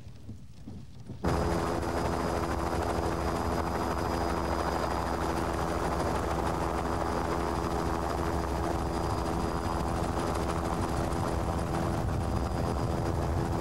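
Helicopter running steadily overhead: a loud, even mechanical drone with the rotor's rapid chop, starting abruptly about a second in.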